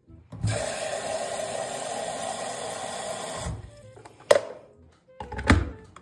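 Tap water running into a stainless-steel electric kettle for about three seconds, then the tap is shut off. A sharp clack and then a heavier clunk follow as the kettle is handled and set down on its base.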